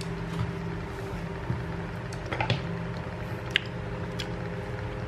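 Light handling noises of soft waffles being moved and pressed down on a ceramic plate: a few faint taps and rustles and one sharper click about three and a half seconds in, over a steady low hum.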